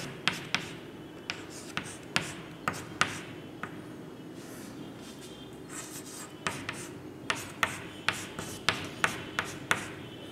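Chalk writing on a chalkboard: sharp taps and short scrapes as letters and plus signs are written, in two runs with a pause of about two seconds in the middle.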